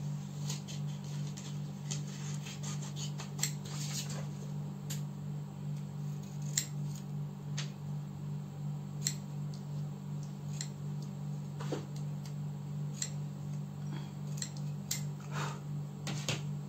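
Scissors snipping through layered paper in short, irregular cuts, over a steady low hum.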